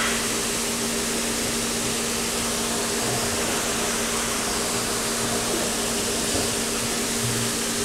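Steady machine hum over a constant hiss, the drone holding one low pitch.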